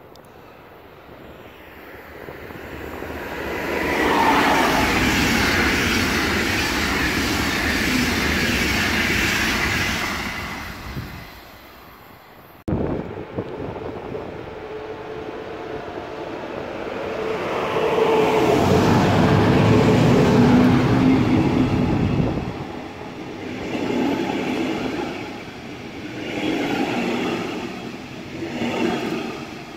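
Two trains running past on the line. The first swells a few seconds in and fades away; then a DB double-deck regional train goes by close, loudest about two-thirds of the way through, its noise rising and falling near the end as the coaches pass.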